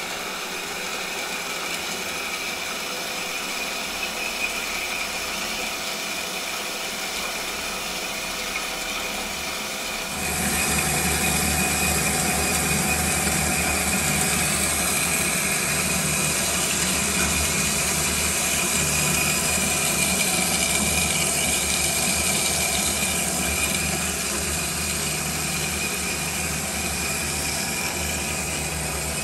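Hydmech DM-10 double-miter metal-cutting bandsaw running a light-feed cut through cold-rolled steel round bar on a brand-new blade being broken in. A steady machine drone with a constant high tone, growing louder about ten seconds in.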